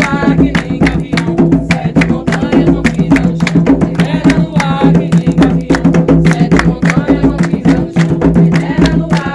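Umbanda ritual music: hand drums, typically atabaques, beating a fast, steady rhythm, with voices singing a ponto in short stretches.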